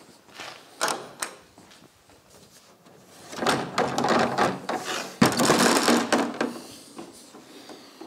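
Quick-release pins on a polyester rear hatch clicking as they are pulled back, then the light polyester hatch being lifted off the car body, rattling and scraping, with a sharp knock about five seconds in.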